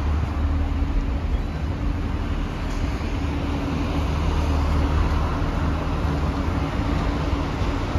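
Diesel railcar idling: a steady low rumble with a constant hum, under an even hiss.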